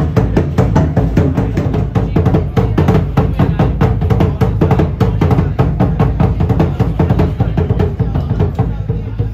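Drum-led music: fast, even drum beats over a low steady drone.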